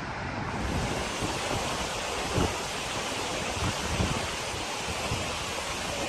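Swollen floodwater river rushing steadily, with gusts of wind buffeting the microphone in low, irregular thumps.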